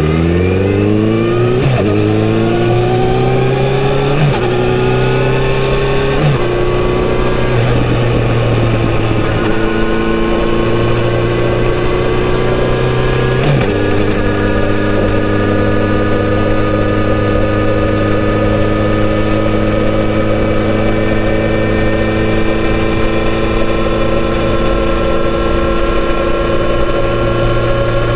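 Kawasaki Z900RS inline-four motorcycle engine accelerating hard from a standstill, its pitch climbing and dropping at each upshift, about four times in the first half. It then cruises at a steady, slowly rising pitch.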